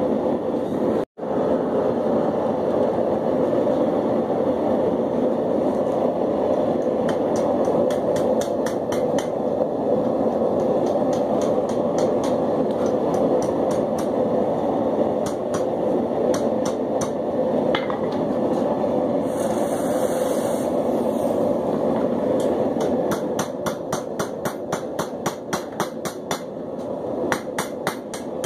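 Propane forge burner running with a steady rush. Near the end a hammer starts striking hot steel on the anvil in quick, regular blows, a few a second.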